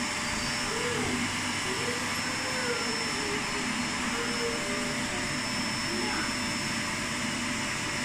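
Canister vacuum cleaner running steadily, a continuous motor hum and whine, with its floor brush being pushed over a rug.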